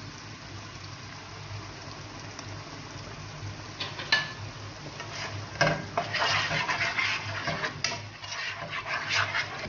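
Tomatoes and olives sizzling gently in oil in a nonstick pan. About five and a half seconds in, a knock, then a spoon stirring and scraping against the pan, with quick clicks, for the last few seconds.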